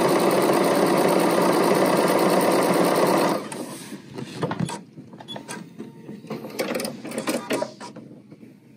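Bernina sewing machine stitching fast with a steady running whir that stops suddenly about three seconds in. Then come quieter small clicks and rustles as the fabric is handled and pulled out from under the foot.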